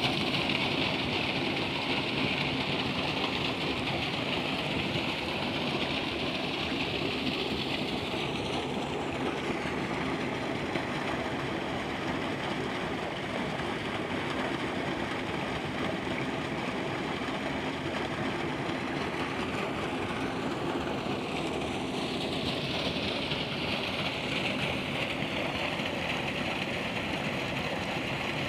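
Water gushing from a deep tube well's outlet pipe and splashing into a concrete tank and irrigation channel, a steady rushing splash that is softer through the middle stretch and louder again in the last several seconds. A steady low rumble runs underneath.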